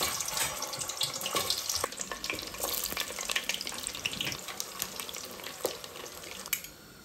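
Food sizzling in hot oil in a pan. It starts suddenly, as if the food has just gone in, crackles densely, and slowly dies down.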